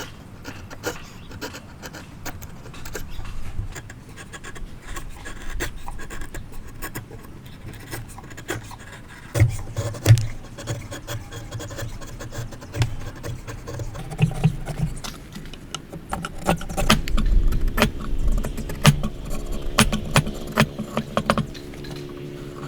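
Hand woodworking: irregular taps, knocks and scraping of tools and timber, with heavier thumps about ten seconds in and again near eighteen seconds. A steady hum comes in after about sixteen seconds.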